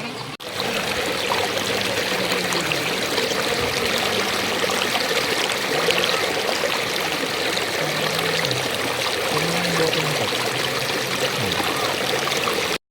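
Stream water rushing and splashing steadily, loud and close to the microphone. It stops abruptly near the end.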